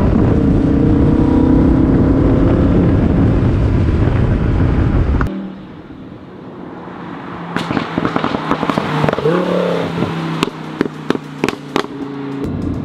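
Lamborghini Huracan Performante's V10 through an aftermarket valvetronic cat-back exhaust, running steadily and heard from inside the cabin. It cuts off abruptly about five seconds in to the car heard from the roadside, coming closer. From about seven seconds in, a string of about a dozen sharp exhaust pops and crackles rings out as it passes.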